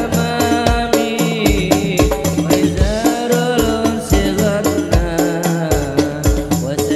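Hadroh ensemble playing sholawat: a male lead singer sings a melismatic line into a microphone over hadroh frame drums, with regular deep bass-drum beats and quick, bright percussion strokes between them.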